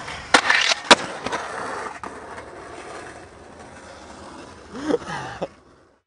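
Skateboard landing on concrete after a handrail trick: two sharp cracks of the board hitting the ground less than a second apart, then the wheels rolling away and fading. A short voice-like sound near the end, then the sound cuts out.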